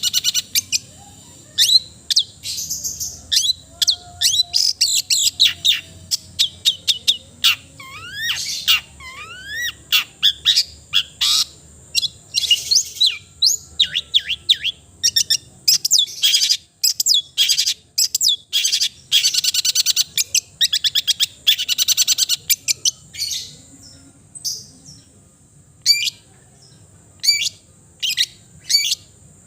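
Long-tailed shrike (cendet) singing a fast, varied song of short harsh chips and rapid trills, with a few rising whistled glides, mixing in mimicked phrases of other birds.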